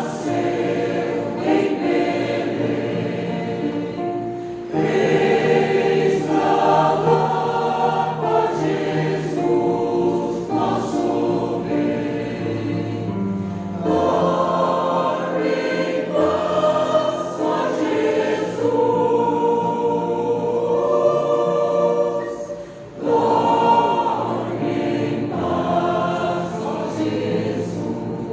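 A choir singing a hymn in sustained phrases, with a short break about 23 seconds in.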